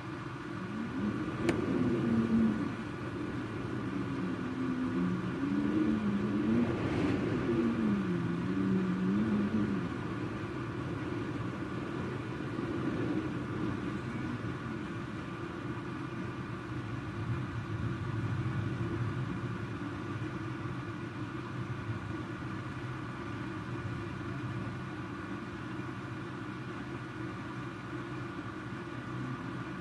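Storm wind howling low and wavering for the first ten seconds or so, over a steady rushing noise, with a sharp click about a second and a half in.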